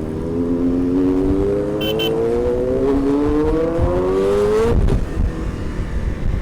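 Kawasaki Z900's inline-four engine revving up loudly, its pitch climbing steadily for about four and a half seconds before falling off sharply as the throttle closes or it shifts.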